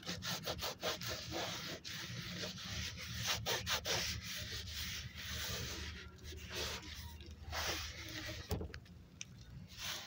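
A scouring pad scrubbed by hand over a vehicle's textured black plastic trim and tyre sidewall: quick, uneven scratchy rubbing strokes.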